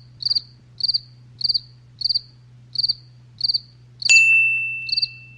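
Cricket chirping in a steady run of short high chirps, about one and a half a second, over a faint low hum. A single bright ding sounds about four seconds in, and its tone rings on.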